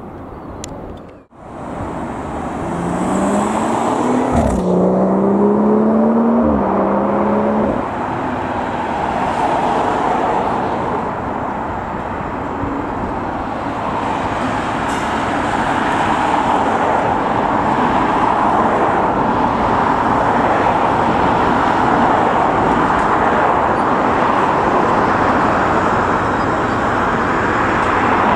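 Colas Rail Freight Class 70 diesel locomotive running light engine. Its engine note climbs in pitch twice between about two and eight seconds in as the power comes on, then settles into a steady heavy diesel rumble as it passes. The sound cuts out briefly about a second in.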